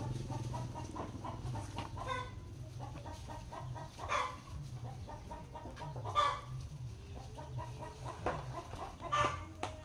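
Chickens clucking in the background, with three louder short calls about four, six and nine seconds in.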